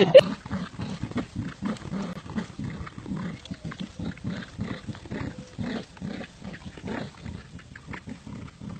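Dogs growling in play during tug-of-war, in short repeated pulses, a few a second.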